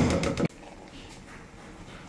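Washed rice tipping from a plastic colander into a pot of stew, a loud rustling and sloshing that cuts off abruptly about half a second in. After it, black-eyed beans pour into the pot with only a faint patter and a few light taps.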